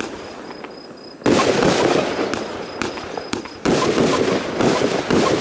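Zena Überblitz 30 mm firework cake firing its shots: sudden loud bursts about a second in and again near the end, each followed by dense crackling that fades.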